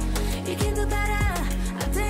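Background pop music with a steady beat and deep bass.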